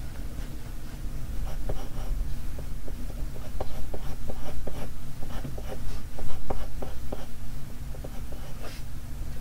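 Graphite pencil scratching on drawing paper in many quick, short strokes.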